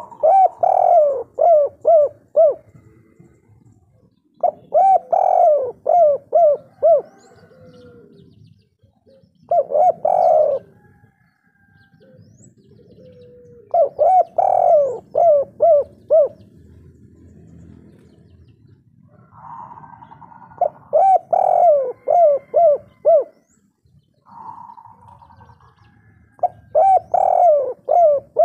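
Spotted dove (derkuku), a 'kuk 3' song-type bird, cooing its song. Six phrases come about every four to six seconds, each a soft higher note followed by a quick run of short, rounded coos.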